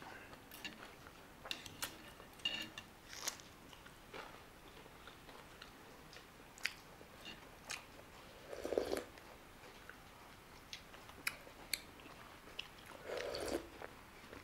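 Close-up mouth sounds of a person chewing steamed chicken momo dipped in soup: a run of soft, wet chewing clicks and smacks. A couple of louder, longer mouth sounds come about nine and thirteen seconds in.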